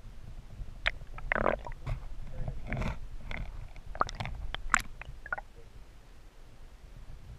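Muffled underwater sound picked up through a submerged camera's housing: a low rumble of water with a run of knocks and clicks, the sharpest about five seconds in, as the released muskie swims close by and brushes the camera.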